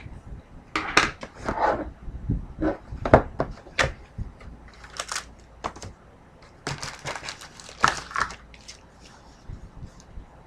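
A hockey card box being opened by hand and its foil packs pulled out: irregular crinkling and rustling of wrapper and cardboard, with small knocks and taps.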